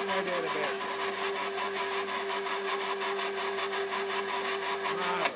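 Electric hoist motor running steadily as it winds a basket of firewood up, with a fast, even pulsing in its hum, then cutting off suddenly at the end.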